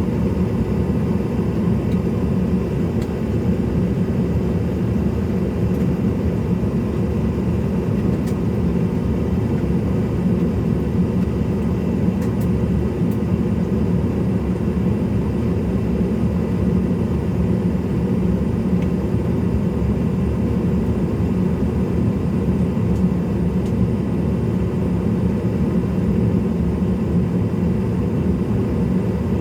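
Steady rumble and hum of a CRJ-700 airliner's cabin before taxi, with faint steady whining tones and no change in level.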